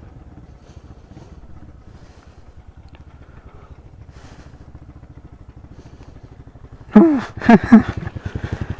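Small four-stroke single-cylinder motorcycle engine idling with a quiet, rapid putter. About seven seconds in, it is revved sharply three times, then runs louder.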